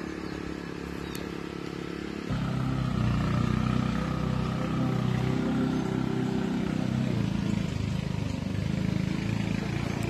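Steady low engine drone, which jumps louder about two seconds in.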